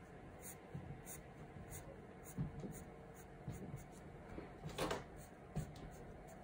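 Graphite pencil drawing short straight lines on sketchbook paper: a series of faint, brief scratches, one for each stroke, with one louder and longer scratch about three-quarters of the way through.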